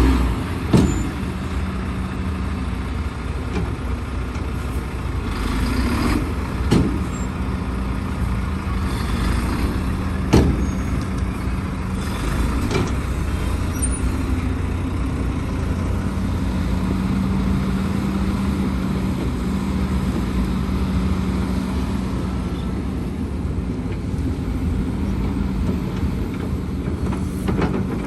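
Heavy diesel engines of an excavator and dump trucks running steadily at work, with sharp knocks or clanks every few seconds.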